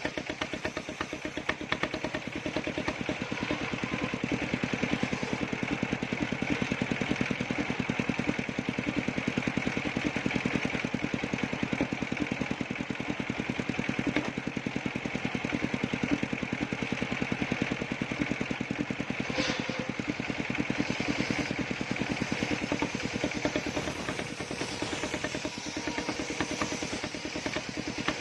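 Engine of a circular-saw sawmill rig running steadily with a fast, even beat, and a short sharp sound about two-thirds of the way through.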